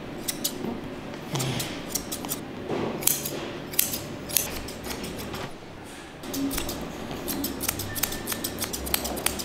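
Steel grooming shears snipping through a Persian cat's facial fur in quick, irregular runs of snips, with a short lull a little past halfway and denser snipping near the end.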